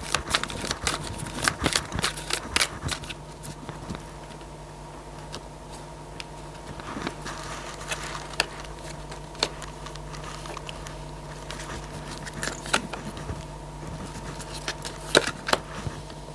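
Oracle cards being shuffled and dealt onto a cloth-covered table: a quick run of papery clicks and flicks for the first few seconds, then scattered single taps as cards are drawn and laid down. A steady electrical hum runs underneath.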